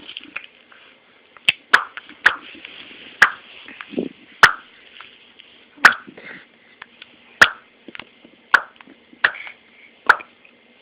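A baby popping her lips, about ten sharp pops at uneven intervals, roughly one a second.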